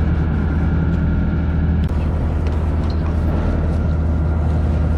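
A fishing boat's engine running steadily, a low even drone.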